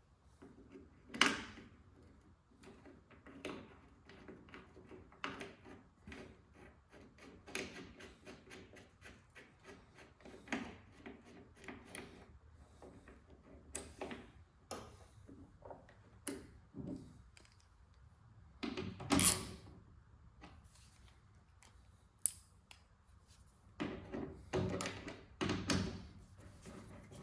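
Hand tools and hardware being handled: scattered clicks, taps and knocks, with a sharp knock about a second in, a louder thunk about nineteen seconds in and a run of knocks near the end.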